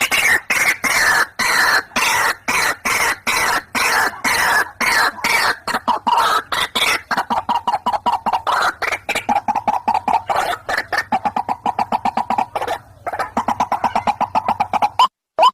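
White-breasted waterhen (ruak-ruak) calling: a fast, unbroken run of harsh repeated notes, several a second. Near the end it breaks off into separate short notes with gaps between.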